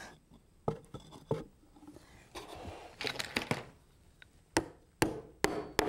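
Hammer tapping small nails into the wooden feet of a wooden basket: a few light taps and some rubbing of wood early on, then four sharper strikes in quick succession near the end.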